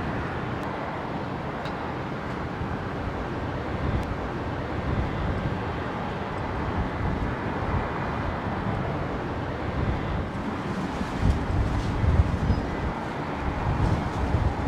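Steady rushing noise of a jet airliner's engines in a strong gale. From about ten seconds in, the wind buffets the microphone in irregular low gusts.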